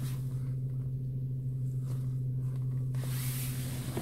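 Steady low hum of a car engine idling, heard from inside the cabin. About three seconds in, a hissing, rustling noise joins it.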